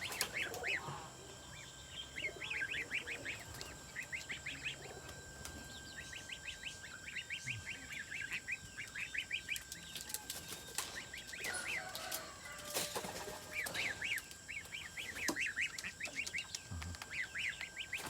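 Birds chirping in quick runs of short, high notes, one run after another, with a few sharp clicks around the middle.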